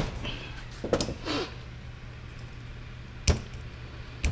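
Sharp metal clicks as a stiff steel wrist-pin C-clip is forced into its groove in a piston with a screwdriver: one at the start, one about three seconds in and another near the end, with a short stretch of scraping and handling noise about a second in.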